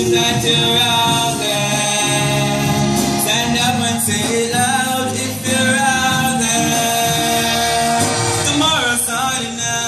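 A choir singing, holding long chords in several parts.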